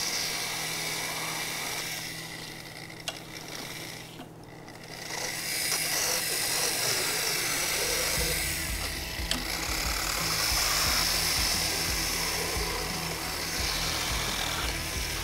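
Electric equine dental cleaning tool running steadily at a horse's incisors, a high whirring hiss, with a brief dip about four seconds in.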